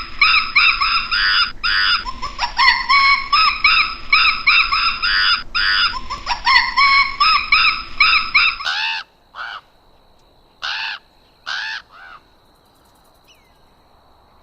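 Bird calls: a dense run of rapid, harsh, repeated calls, then, after a sudden change about nine seconds in, a few separate single caws of a crow-family bird spaced about a second apart.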